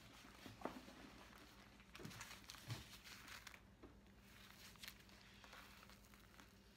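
Faint crinkling and rustling of bubble-wrap packaging as a wrapped bag strap is handled, with a few small sharp crackles over a faint steady hum.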